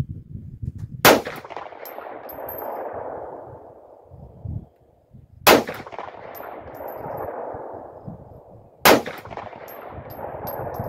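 Three 9mm pistol shots from a Glock 43-pattern subcompact, fired slowly about four seconds apart, each followed by a long echo that fades over a few seconds.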